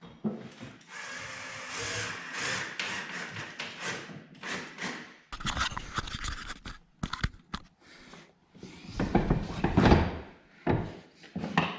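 Hand work on a small piece of Kydex: several seconds of rubbing and scraping strokes, then scattered knocks and clatter.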